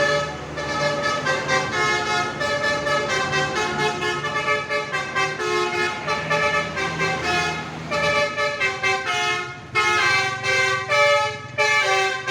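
Telolet horn on a bus: a multi-tone musical horn playing a fast tune of short notes, over a steady low hum.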